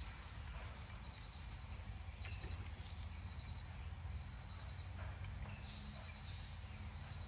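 Insects chirring steadily in the background over a low rumble, with a couple of faint knocks a little after two and three seconds in.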